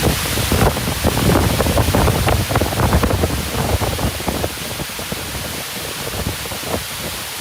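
Waterfall rushing in a steady hiss, with wind buffeting the microphone in irregular low gusts, strongest in the first half.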